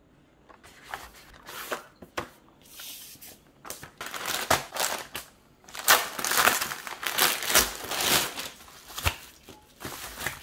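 A thin plastic courier mailer crinkling and being torn open, then bubble wrap rustling. The rustling comes in irregular bursts that grow louder and denser in the second half, with a sharp click near the end.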